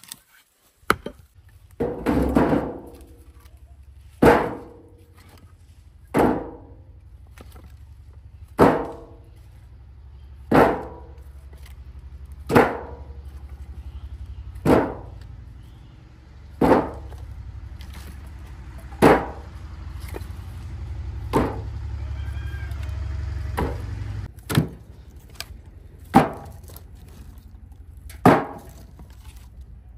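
Axe chopping firewood: a sharp chop into wood about every two seconds. A low steady hum runs underneath and stops about three-quarters of the way through.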